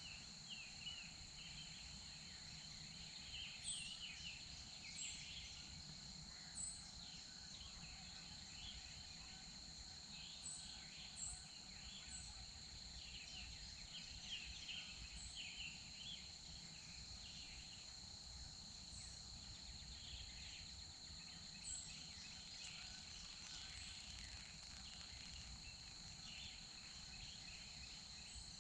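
Faint woodland ambience: a steady high-pitched insect drone with scattered songbird chirps and short high calls every second or two.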